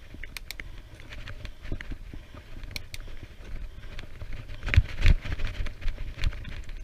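Wind rumbling on the microphone of a camera carried on a moving bicycle, with irregular clicks and rattles and two heavier knocks about five seconds in.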